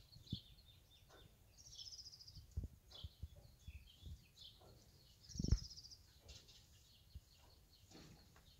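Small birds chirping, with two quick high trills, over faint rustling and a few short low thumps from a bull pulling hay from a rack; the loudest thump comes about five and a half seconds in.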